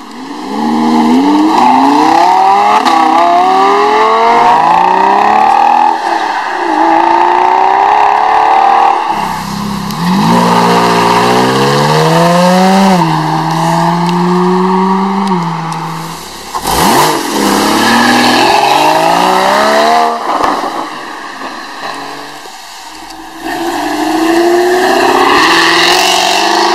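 A run of supercars accelerating hard, including a Lamborghini Huracán's V10 and a Jaguar F-Type. Each engine revs up with a rising pitch that drops back at every gear change and climbs again.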